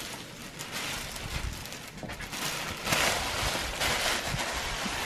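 Thin plastic bag rustling and crinkling as it is pulled off the embroidery machine, loudest about three seconds in.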